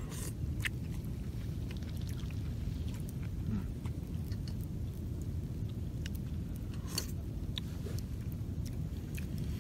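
People eating noodle soup with chopsticks: chewing and slurping, with scattered small clicks, over a steady low rumble.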